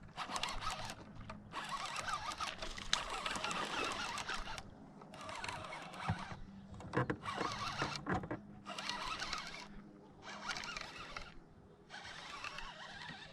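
Fishing reel being cranked in spells of fast winding with short pauses, as a hooked bass is reeled in, with a few brief knocks partway through.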